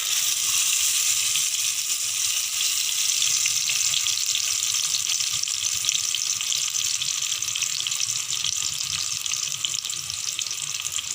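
Masala-marinated chicken leg pieces sizzling in shallow hot oil on a tawa: a steady, loud frying hiss that jumps up at the start as a piece goes into the oil and eases slightly toward the end.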